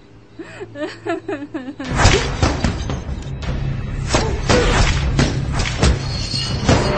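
Dramatic film music with a heavy low pulse starts about two seconds in. Repeated thuds of punches landing on a heavy punching bag run through it.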